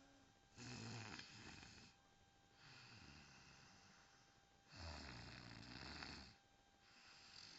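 A person snoring on purpose for a snoring contest: two loud snores with a low rumble, about four seconds apart, the first about half a second in, with softer, breathier snores after each.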